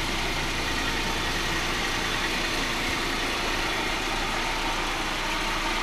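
A Honda Civic's engine idling, a steady, even running sound that holds unchanged throughout.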